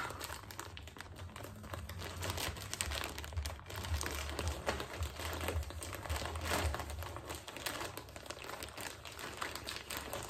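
Plastic mailing bag crinkling and rustling in irregular bursts as hands pull and twist at its sealed top, trying to tear it open.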